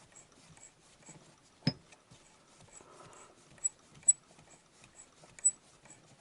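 Hand-tapping an M8 thread into a drilled hole in wood: soft ticking about twice a second, with four sharp clicks of the tap and wrench, the loudest about four seconds in.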